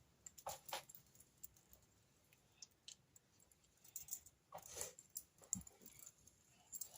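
Near silence broken by scattered faint clicks, with a few more together about four to five seconds in: small plastic mask connectors being handled.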